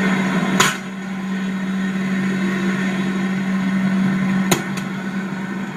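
Commercial four-door glass refrigerator running just after start-up: a steady hum with the whirr of its fans, broken by two sharp clicks, one about half a second in and another a few seconds later.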